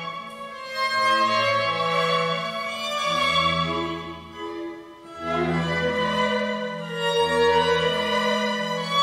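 Clarinet with two violins, viola, cello and double bass playing a Styrian dance in phrases over sustained bass notes, with a brief lull between phrases about five seconds in.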